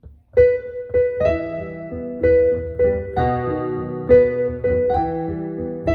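Solo piano playing a slow, gentle melody over sustained lower chords, each note struck and left to ring; it begins a moment in.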